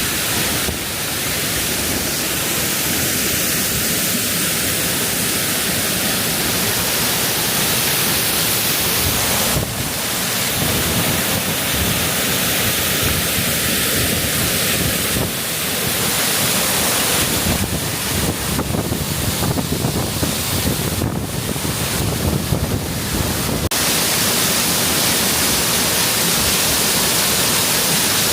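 Waterfall rushing: a loud, steady hiss of falling water. Partway through comes a run of irregular crackles and bumps, which stops suddenly.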